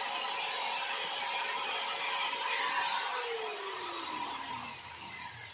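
Angle grinder with a cut-off disc running with a steady whine, then switched off about three seconds in, its pitch falling as the motor and disc spin down.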